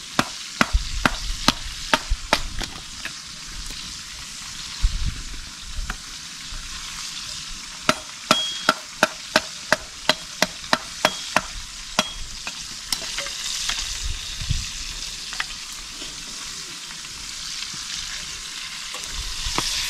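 Food sizzling steadily as it fries. Two runs of quick, sharp taps cut through it, a short one in the first few seconds and a longer one around the middle.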